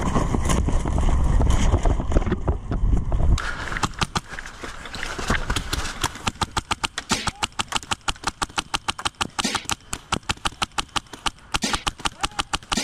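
Heavy rumble and thuds of movement on a body-worn microphone for about three seconds, then an MTW Billet HPA airsoft rifle firing quick strings of sharp clicking shots, several a second, with short pauses.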